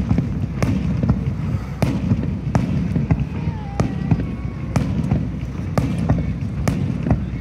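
Fireworks display: aerial shells bursting in a run of sharp bangs and crackles, roughly one every half second, over a low steady rumble.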